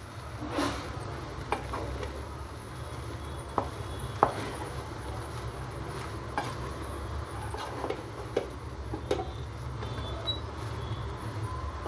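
Wooden spatula stirring and scraping cooked rice in an aluminium pot, with irregular knocks of the spatula against the pot's sides, over a steady low hum.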